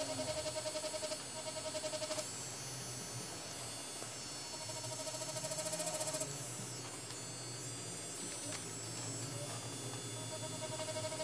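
DragonHawk Mast Archer wireless rotary tattoo pen buzzing at a steady pitch as it works ink into synthetic practice skin. It runs in three spells: it stops about two seconds in, runs again for about two seconds near the middle, and starts once more near the end.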